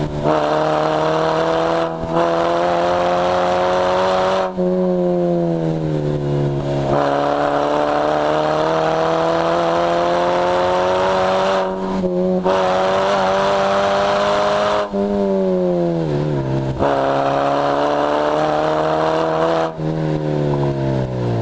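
Lotus Elise S1 111S's 1.8-litre four-cylinder engine pulling hard, heard from the open cockpit: the revs climb slowly under throttle, then fall each time the driver lifts off or changes gear, around five seconds in, briefly near twelve seconds, again around fifteen seconds and near the end.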